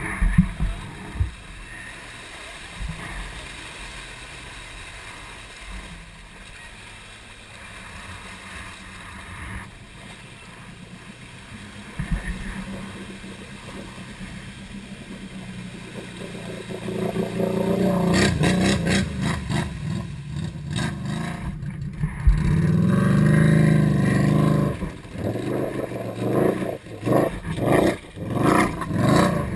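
Can-Am Renegade ATV engine running at a low, steady idle, then revved hard in repeated surges from about halfway on as the stuck quad is worked out of deep mud.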